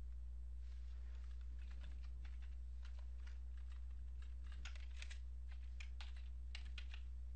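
Typing on a computer keyboard: a run of irregular key clicks that starts about half a second in and stops shortly before the end, over a steady low hum.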